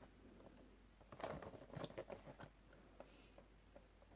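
Faint handling noises: a cluster of soft clicks and crackles about a second in, over otherwise near-silent room tone, as the boxed vinyl figure and its packaging are handled.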